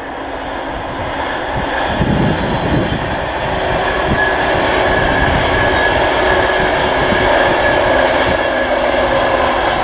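East Coast InterCity 225 electric express with Mark 4 coaches passing at speed: a steady rush and rumble of wheels on rail that grows louder over the first few seconds. A thin steady whine joins about four seconds in.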